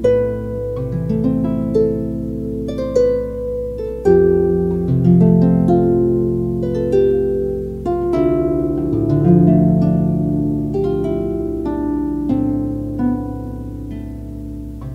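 Solo harp playing a slow, flowing piece: plucked melody notes and chords ring out over low bass notes that are left to sustain.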